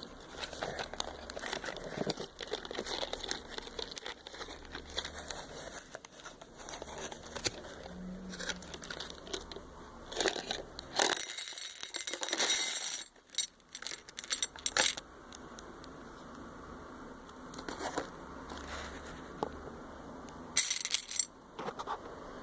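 Packaging being handled: plastic crinkling and rustling with scattered small clicks and rattles, and a louder spell of rustling about halfway through.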